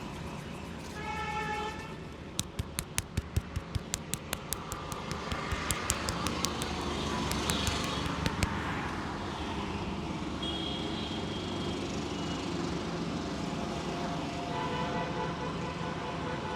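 Barber's hands slapping rhythmically on a client's head in a head massage: a quick run of sharp slaps, about four a second, starting about two seconds in and thinning out a few seconds later. Street traffic runs throughout, with short vehicle horn toots near the start and again near the end.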